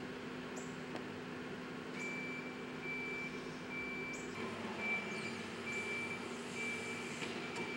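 Backhoe loader's diesel engine running, with its reversing alarm starting about two seconds in and beeping a little more than once a second as the machine moves.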